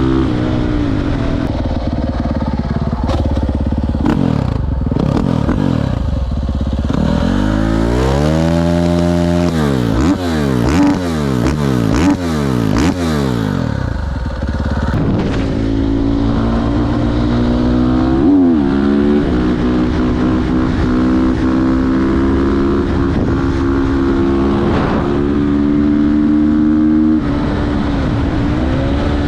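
KTM 450 SMR supermoto's single-cylinder four-stroke engine through an Akrapovic exhaust, ridden on the road with the revs climbing and dropping through the gears. Around the middle the revs swing up and down quickly several times, then hold fairly steady for about ten seconds.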